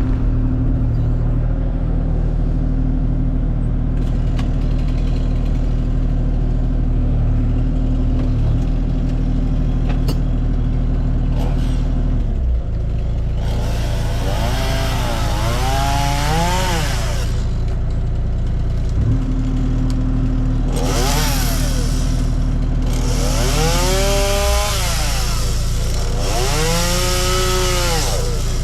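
Kubota KX040 mini excavator's diesel engine running steadily, its note shifting with the hydraulic load. About halfway through, a chainsaw joins it, revving up and down in three spells as it cuts.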